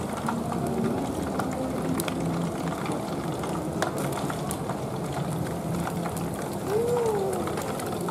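Whole catfish deep-frying in a wok of hot cooking oil: a steady sizzling hiss with scattered pops and crackles. A short rising-then-falling tone sounds about seven seconds in.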